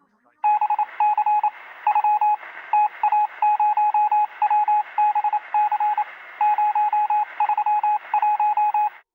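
Electronic beeping tone pulsed in quick, irregular groups of short and longer beeps over a steady hiss, thin and narrow like a radio or phone line. It starts abruptly about half a second in and cuts off suddenly near the end.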